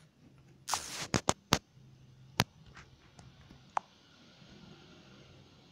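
Fingers tapping and handling a smartphone close to its microphone: a scattered run of about seven or eight sharp clicks and taps over the first four seconds, over a faint low hum.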